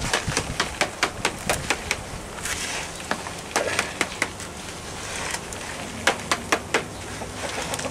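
A knife blade scraping and knocking around the inside of a plastic nursery pot, in an irregular run of sharp clicks and several short scrapes, to loosen a dragon fruit plant's root ball from the container.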